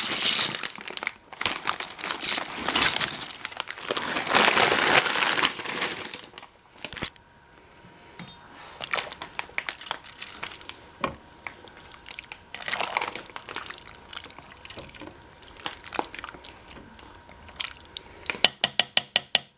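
Plastic bag of dry wide egg noodles crinkling as the noodles are shaken out of it into the pot, loudest over the first six seconds, then quieter rustling and scattered clicks. Near the end comes a quick run of sharp clicks.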